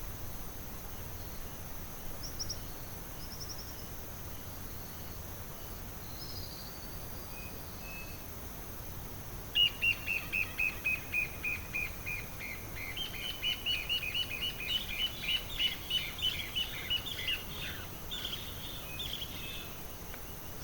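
Forest birds calling: a few faint short chirps, then about halfway in a loud run of quick, clear notes that step down in pitch, followed by a longer rapid series of notes, over a steady high insect hiss.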